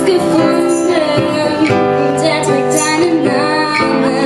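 A girl singing into a handheld microphone over a live school band's accompaniment, amplified through the stage sound system.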